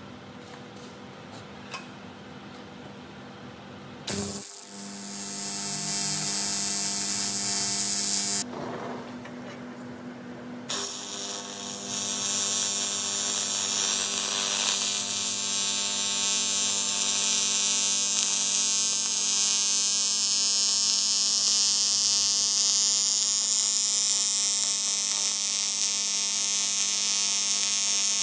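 AC TIG welding arc on aluminium pipe, a steady electric buzz with hiss. It is quieter for the first four seconds, then starts up, dips briefly about a third of the way in, and runs steadily through the rest.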